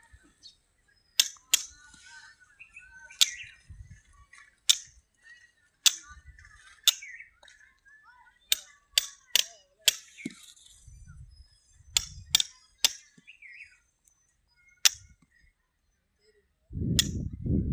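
A series of sharp clicks or knocks at irregular intervals, about one a second, with a louder low sound starting near the end.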